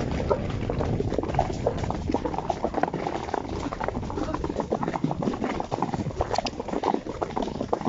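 Horses' hooves clip-clopping on a grass and dirt track, an irregular run of knocks from more than one horse over a low rumble.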